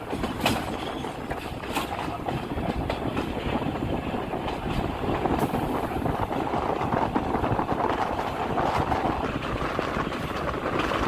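Streamliner trolley train running along the track, heard through an open window: a steady rumble of wheels on rail with a few sharp clicks over rail joints.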